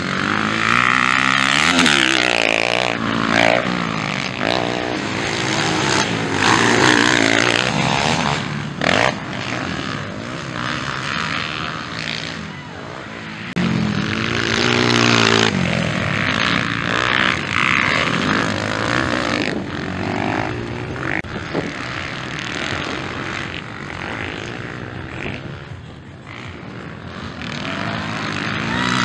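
Motocross dirt bike engines revving hard through corners and straights, the pitch climbing and dropping again and again as riders accelerate, shift and back off, in a series of loud passes.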